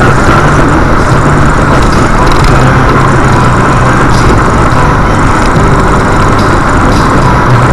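Steady, loud engine and tyre noise inside a car cruising at highway speed, picked up by a dashcam microphone.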